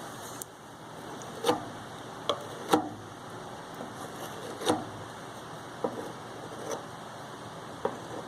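A series of sharp clicks and light knocks, about seven, coming at irregular intervals over a steady background hiss.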